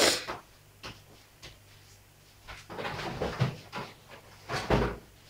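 Kitchen handling noise: a sharp knock at the start, a few light clicks and some rustling, then a heavier thump near the end.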